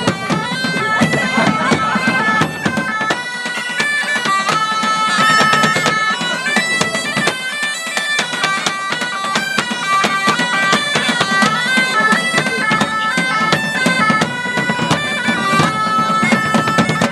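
Two medieval-style bagpipes playing a lively tune in unison over their steady drones, with two drums beaten with sticks keeping a driving rhythm.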